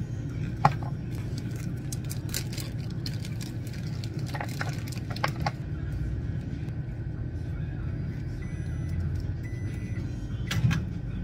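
Plastic food packaging crinkling and a sauce sachet being torn open and squeezed into a paper instant-noodle cup, heard as a few short sharp crackles, the loudest near the end, over a steady low hum.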